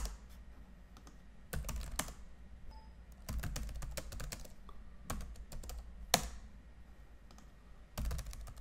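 Typing on a computer keyboard in short bursts of keystrokes with pauses between them, and one harder key stroke a little past the middle.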